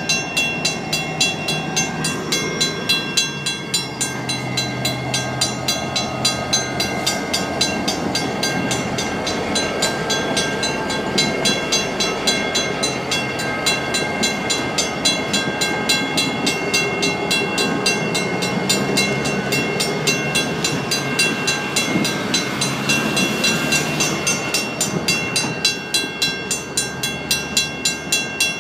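A grade-crossing signal's mechanical bell ringing with rapid, even strokes, over the low rumble of BNSF diesel locomotives rolling slowly through the crossing.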